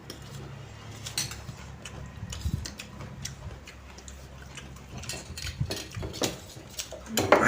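Irregular light clicks of a spoon against a plate while noodles are eaten, over a steady low hum.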